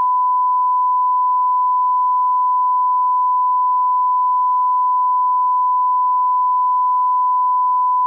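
Emergency alert attention tone: a single steady, unbroken tone of about 1 kHz. It signals that an emergency message is about to be broadcast.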